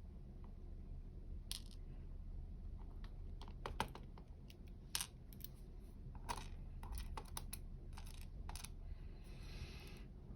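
Light metallic clicks and taps of small lock pins and tools being handled while a dimple lock is taken apart, scattered irregularly with a couple of quick clusters, then a short scraping rustle near the end.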